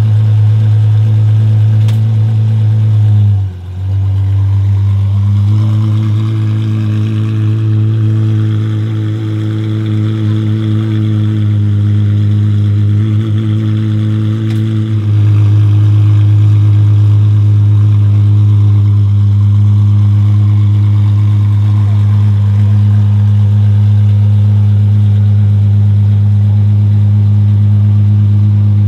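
Apollo Intensa Emozione's 6.3-litre naturally aspirated V12 idling. The steady idle dips briefly about three seconds in and runs at a slightly higher pitch for about ten seconds before settling back.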